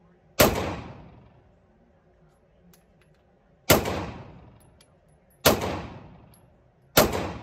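Four shots from a semi-automatic pistol, fired one at a time a second and a half to three seconds apart, each a sharp crack with about a second of echo trailing off in an indoor shooting range.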